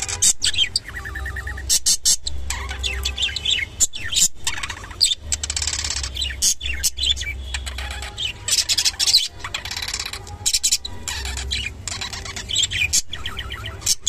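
Budgerigars chattering and warbling in quick, continuous chirps with sharp clicks, the sound of a pair mating.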